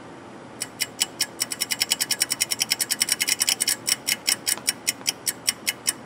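Rapid, even mechanical clicking, about seven clicks a second, starting about half a second in and stopping near the end.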